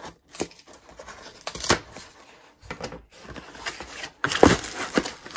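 A folding knife cutting through packing tape on a cardboard mailing box and the flap being ripped open: irregular scraping and tearing, loudest about four and a half seconds in.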